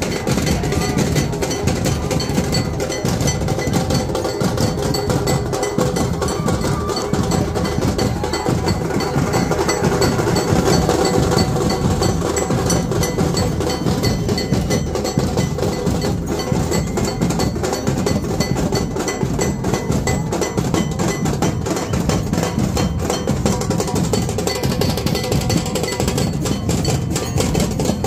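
Dhol drums played in a fast, steady beat with clanging metal percussion, over a crowd shouting and cheering.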